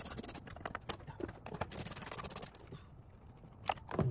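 Rapid clicking and scraping in two bursts about a second and a half apart, with scattered knocks between, from hands and tools working on the frunk trim and its fasteners.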